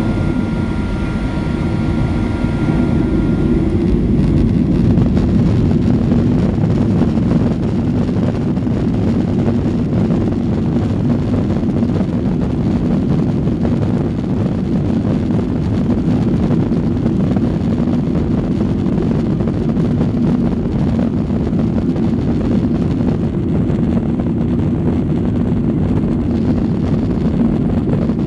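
Cabin noise of a Boeing 737 on its takeoff roll: the jet engines and the runway make a loud, steady rumble, with a faint high whine that fades out about three seconds in.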